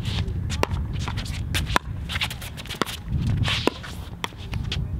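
A pickleball rally: paddles strike the hard plastic ball in sharp, ringing pops about once a second, with players' feet shuffling on the court between shots.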